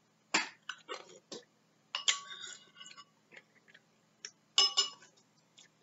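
Metal spoon clinking and scraping against a ceramic soup bowl: a few sharp clicks, then ringing clinks about two seconds in and again near five seconds, with lip-smacking and chewing of soup noodles in between.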